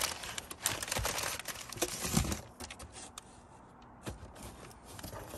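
Brown kraft packing paper crumpling and a cardboard shipping box's flaps rustling as the box is unpacked, with scattered sharp clicks and knocks. It goes quieter about three seconds in.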